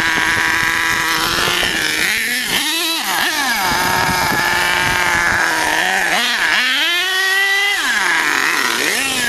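HPI Savage X nitro RC monster truck with a K5.9 engine driving, its high engine whine rising and falling several times as the throttle is opened and backed off.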